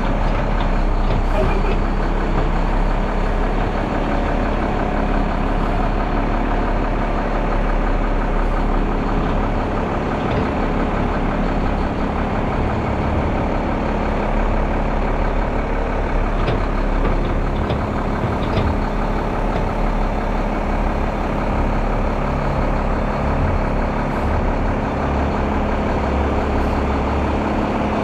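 Front-load garbage truck's diesel engine running steadily, a continuous low drone with a few faint clicks over it.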